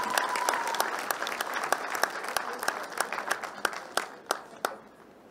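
Audience applauding, the clapping thinning to a few scattered claps and dying away about four to five seconds in.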